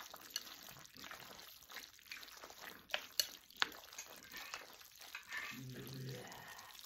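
Zhajiang noodles being stirred with wooden chopsticks in a ceramic bowl: faint, irregular wet squelching of the sauce-coated noodles, with a few sharp clicks about three seconds in.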